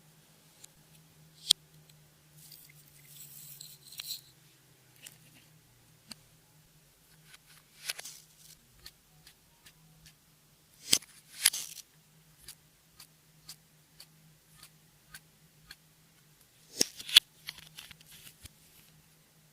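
Clear slime being worked by hand: scattered sharp pops and clicks, with a few short crackly stretches, the loudest about 11 and 17 seconds in. A faint steady hum lies underneath.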